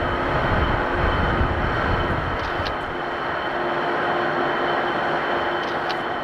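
Farm tractor engine running steadily under a plowing load, a deep rumble under a constant hum, the low end easing a little about halfway through.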